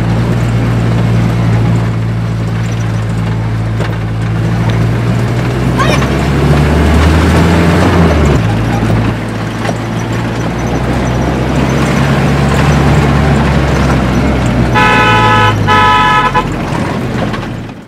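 Engine of the vehicle being ridden in, heard from inside the cabin: a steady drone whose pitch climbs and then drops suddenly about eight seconds in. Near the end the horn sounds twice in quick succession.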